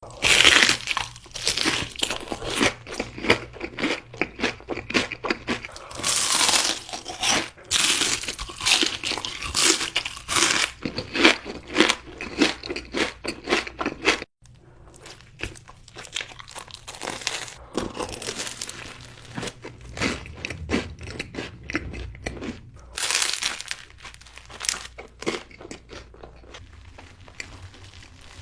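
Close-miked eating sounds: crisp crunching bites and chewing of crunchy food, with some crinkling of wrappers. About halfway through the sound cuts out for an instant and resumes quieter.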